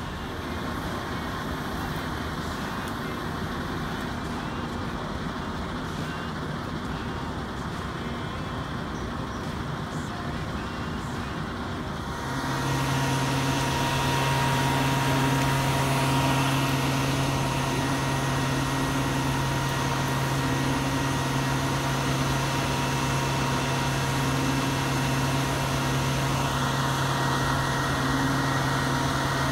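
Heavy rotator tow truck's engine running steadily. About twelve seconds in it grows louder, with a strong steady low hum.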